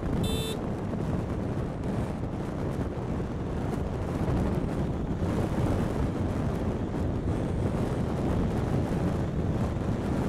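Wind rushing over the microphone, with tyre and road noise from an Ola S1 Pro electric scooter riding at speed. A brief high tone sounds just after the start.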